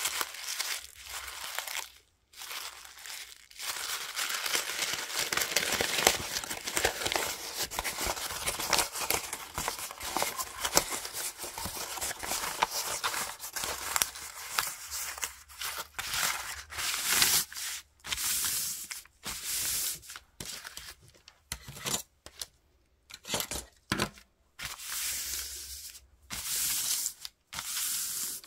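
Brown paper-bag paper being crumpled in the hands, a dense continuous crackling. From about halfway it is opened out and smoothed flat, heard as shorter bursts of crinkling with brief pauses between them.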